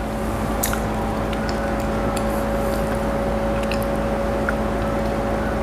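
Soft wet mouth sounds of a person chewing a spoonful of creamy eclair cake, with a few small scattered clicks, over a steady low hum.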